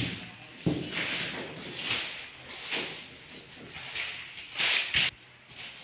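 WPC wall-panel strips being handled and pressed against a wall: a run of scraping, rubbing swishes about once a second, with sharp knocks near the start, just under a second in, and about five seconds in.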